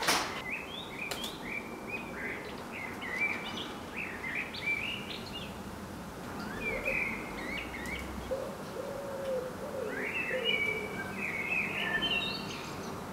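Wild birds chirping and singing in short, repeated phrases, with a few lower calls about halfway through.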